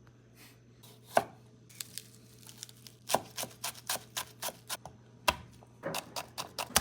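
Knife chopping on a cutting board. One chop comes about a second in, then a quick run of chops at about three or four a second from about three seconds in, and a few more near the end.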